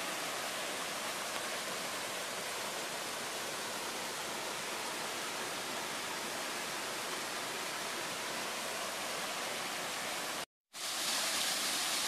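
Steady rush of a small waterfall splashing into a rocky creek pool. About ten and a half seconds in, the sound cuts out for a moment and returns as a slightly louder rush of falling water.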